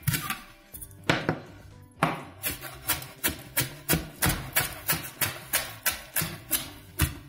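Santoku knife chopping green onion whites on a plastic cutting board: a few separate knocks at first, then from about two seconds in a steady run of about three chops a second. Background music plays underneath.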